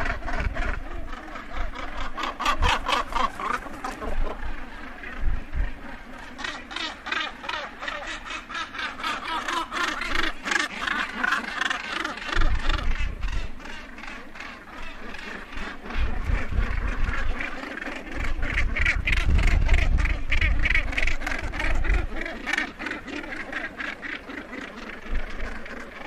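Northern gannets calling close up: harsh, rapid rattling calls from several birds at once, overlapping and continuous. Bursts of low rumbling noise come and go several times.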